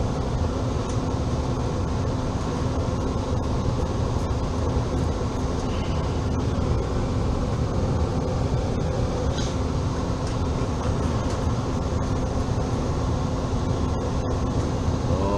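HVAC equipment running steadily: a constant fan whir over a low electrical hum.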